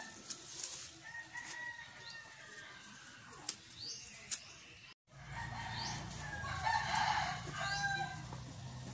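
Backyard native chickens calling: a rooster crowing in the distance and hens clucking, with short chirps between. After a sudden break about five seconds in, a low steady hum runs under the calls.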